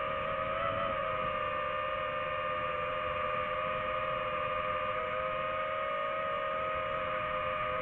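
DJI FPV drone's motors and propellers whining at a nearly steady pitch in cruising flight, heard from on board, the tone wavering only slightly.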